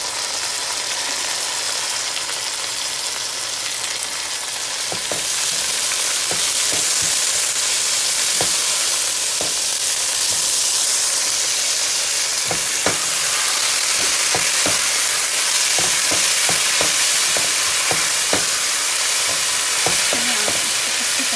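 Onions, tomatoes and green chillies frying in hot oil in a pan: a steady, loud sizzle that grows louder about five seconds in. Through it come scattered taps and scrapes of a plastic spatula stirring against the pan.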